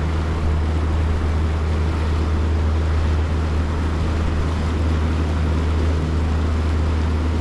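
Boat motor running steadily as the boat cruises along, a constant low hum with water and wind noise over it.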